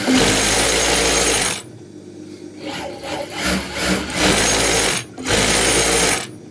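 Sewing machine running in three stop-start bursts: one of about a second and a half, then two shorter runs near the end, with lighter mechanical clatter between them.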